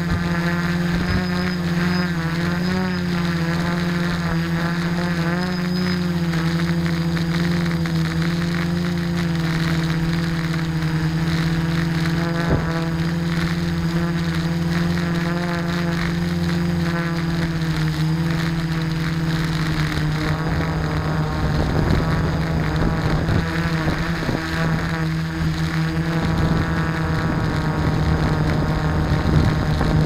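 Quadcopter's electric motors and propellers running with a steady hum, heard close up from the craft's own camera, the pitch wavering slightly as the throttle changes. From about two-thirds of the way through, a rougher rushing noise joins in under the hum.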